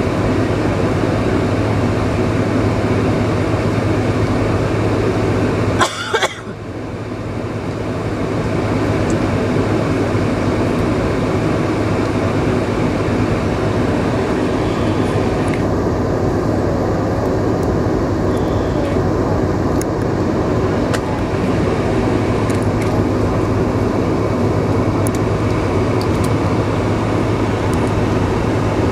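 Steady cabin noise of a Boeing 747-436 taxiing on its four Rolls-Royce RB211 engines, with a constant low hum. About six seconds in there is a sharp click, after which the noise drops away and builds back up over about two seconds.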